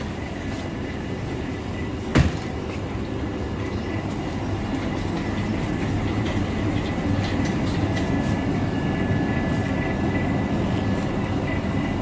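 Metal shopping trolley loaded with a plastic crate rolling and rattling over a tiled floor, with one sharp knock about two seconds in.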